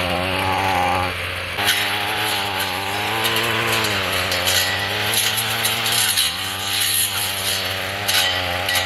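Gas-powered weed eater fitted with a circular saw blade, its engine running at high revs as the blade cuts through leafy brush. The engine pitch keeps dipping and recovering under load, over a hiss of shredding leaves and stems.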